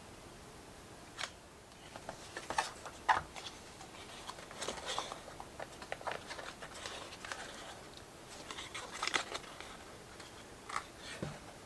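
Cardboard box and packaging of a model locomotive being handled while trying to slide the model out: scattered light taps, clicks and brief scraping and rustling.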